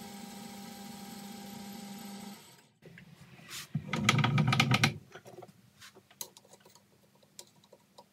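Boxford metal lathe running steadily with a motor hum, then switched off and spinning down to a stop about two and a half seconds in. About a second later comes a loud rattling clatter lasting about a second, followed by scattered light clicks.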